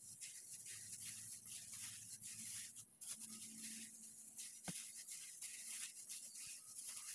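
Faint, irregular rustling and squishing of a plastic-gloved hand tossing and squeezing floured chicken skin pieces in a stainless steel bowl, with a single small tap about four and a half seconds in.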